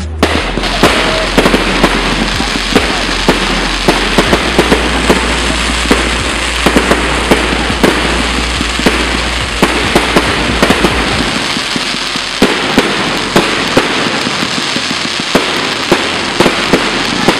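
Aerial fireworks bursting: a dense, continuous crackle with frequent sharp bangs coming irregularly, several a second.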